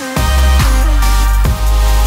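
Electronic dance music with a heavy, deep bass and repeated falling notes; the bass comes back in right at the start after a short break.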